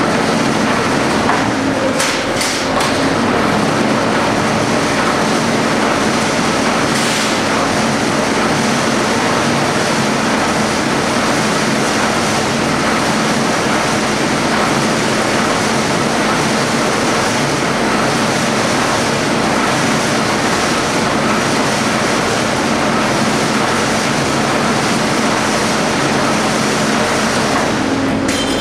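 Old flywheel-type power shear running with a loud, steady mechanical clatter while 16-gauge sheet steel is cut to size. A few sharp clanks stand out: two about two seconds in, one about seven seconds in, and one near the end.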